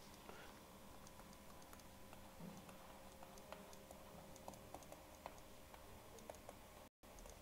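Near silence with faint, irregular light clicks and taps from a stylus writing by hand on a digital screen, over a faint steady hum. The sound cuts out completely for an instant near the end.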